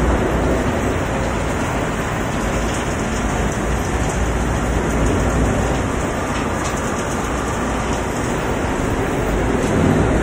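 Hongxin HX2000-1000 horizontal grinder running, a steady, dense noise as it grinds waste boards and pallets into chips.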